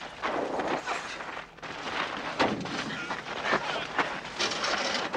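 Movie fistfight sound effects: several sharp punch-like hits over scuffling on gravel, the loudest hit about two and a half seconds in.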